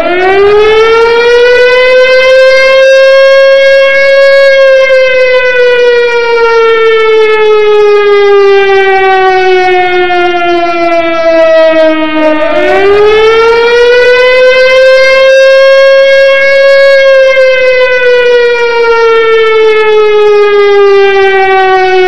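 A siren in a slow wail. It winds up from a low pitch to a high note and holds it, then slowly falls. About halfway through it rises quickly back to the high note and slowly falls again.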